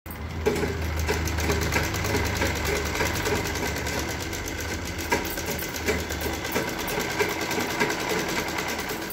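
Satyam domestic sewing machine stitching steadily, a fast, even rattle of the needle running through the fabric that stops at the very end.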